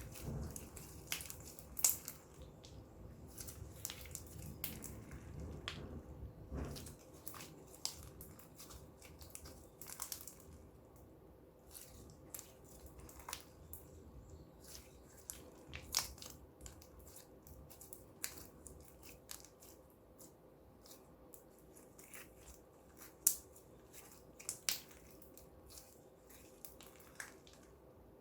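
Clear slime being worked by hand, giving irregular small sticky clicks and pops. A low rumbling handling noise under the first several seconds stops about seven seconds in.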